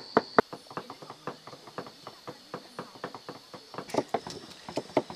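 A knife chopping on a cutting board in quick, irregular strokes that grow busier near the end. A cricket's steady trill stops about half a second in.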